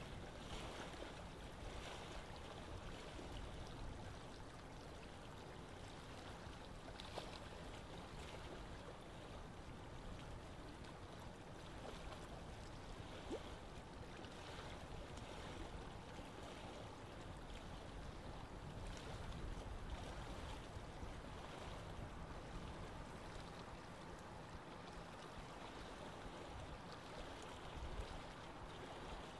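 Faint, steady outdoor ambience: an even wash of noise with no distinct events.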